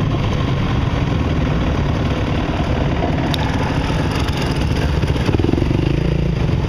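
Trail bike engine running at low speed close to the microphone, with a second dirt bike's engine joining in a little past the middle as more riders pull up.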